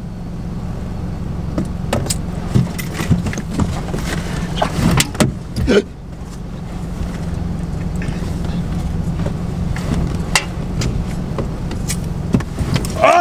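A car's low, steady running rumble heard inside the cabin, with scattered short clicks and knocks of things being handled.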